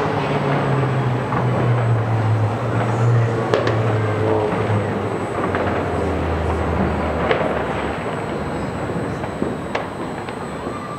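Steady rumble of city traffic with a low engine hum that drops lower about six seconds in, and a few sharp distant pops.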